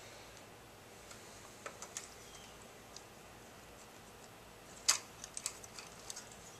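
Scattered light clicks and taps of small metal parts being handled as the choke and throttle linkage wires are worked into the lawnmower carburetor's levers. There are a few near two seconds in, then a cluster from about five seconds in, the sharpest click first.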